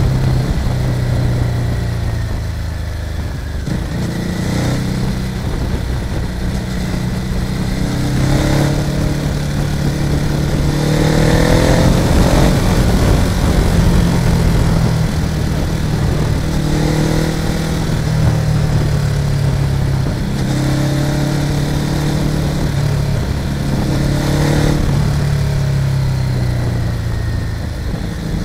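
Motorcycle engine running under way, its pitch climbing and dropping several times as it accelerates and shifts gears, with wind rushing over the microphone.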